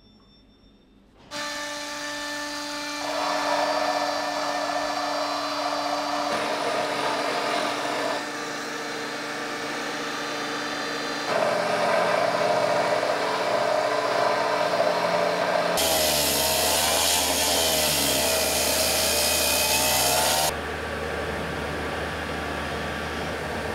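Stone-working power tools running on granite: steady motor whine with grinding and polishing noise, coming in suddenly about a second in. The pitch and character change abruptly several times, with a wavering whine in one stretch near the end.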